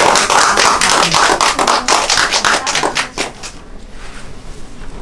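A small group of people applauding, dense and loud, dying away a little over three seconds in.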